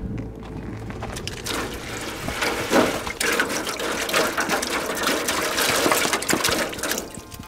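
Water poured from a plastic bottle into a disposable aluminium foil pan, splashing into the filling pan; the pour starts about a second in and stops near the end.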